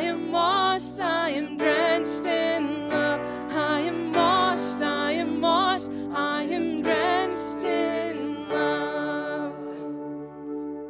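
A worship song: a voice singing with vibrato over steady held chords. The singing stops about eight and a half seconds in, leaving the chords sounding alone.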